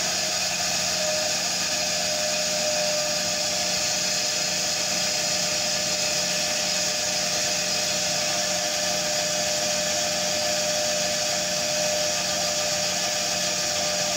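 Separately excited DC motor and its coupled dynamometer running steadily at around 1,580 rpm, a constant electric-machine whine over an even high hiss. The dynamometer load is being raised toward 0.9 N·m.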